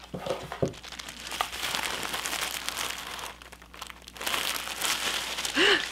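Tissue paper and crinkle-cut paper shred rustling and crinkling as a tissue-wrapped package is handled, in two long stretches with a short pause in the middle.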